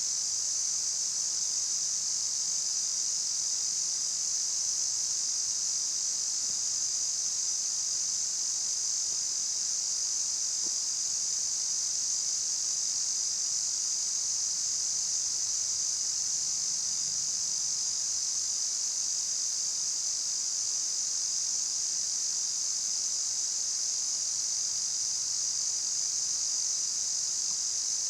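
Steady, high-pitched chorus of insects, unbroken and unchanging in level.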